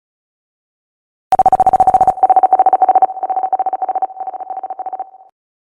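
DJ air horn sound effect: one longer blast followed by a quick run of short, evenly spaced blasts at the same pitch, tailing off at the end.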